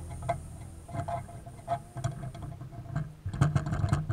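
Hand spreader scraping and tapping as body filler is worked over a steel motorcycle frame, in short irregular strokes a few times a second, busiest near the end.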